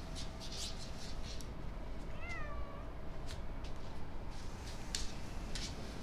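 A calico cat gives one short meow about two seconds in, rising then falling in pitch. A few light ticks sound around it over a faint steady hum.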